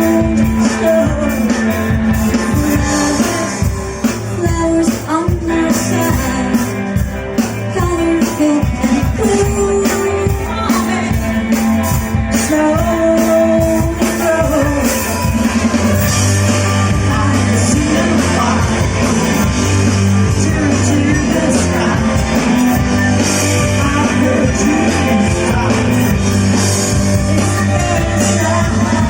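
A rock band playing live, with a singer's voice over electric guitar and a steady drum beat.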